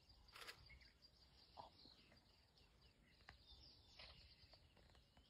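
Near silence: faint outdoor ambience with a few distant bird chirps and a brief soft rustle about half a second in.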